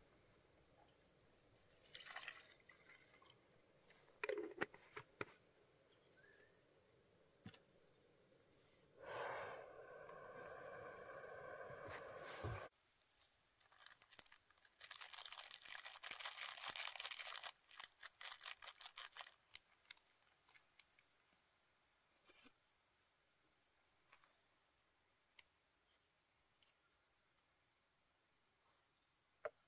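Water poured from a bottle into a small cooking pot for about three seconds, ending with a knock as the bottle is set down. A louder rustling crinkle follows a few seconds later, then a few light clicks. Insects chirr steadily throughout.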